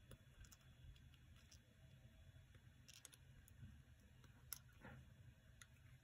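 Near silence with a few faint, short clicks as a resistor's wire leads are pushed into the contacts of a solderless breadboard, the clearest about four and a half seconds in.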